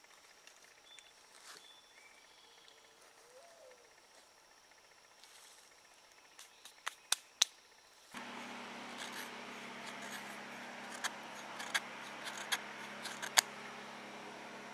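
A knife blade scraping and shaving a stick of fatwood for tinder: a few sharp, separate scrapes and clicks over a steady faint hiss, starting about halfway through. Before that it is nearly quiet, with a few light clicks.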